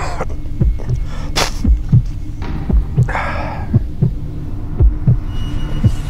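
Heartbeat sound effect, a double thump about once a second, over a low steady drone. A man coughs at the very start, a brief sharp hiss comes about a second and a half in, and a short rasping burst follows about three seconds in.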